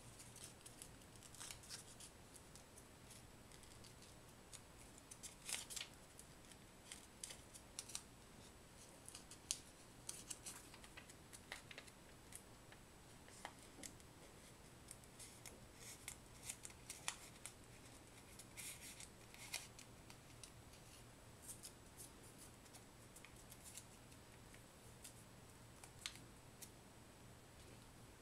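Faint, crisp crinkling and rustling of a thin paper strip being rolled tightly between the fingers, in short irregular bursts of crackle.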